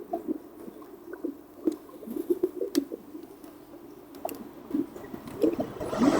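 FurReal Friends Dazzlin' Dimples electronic toy dolphin making soft, irregular low sleeping sounds in night mode, broken by small clicks. A loud, steady rushing noise sets in right at the end.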